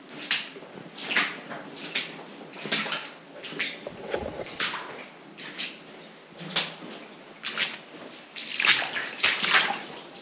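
Footsteps splashing through shallow water, about one step a second.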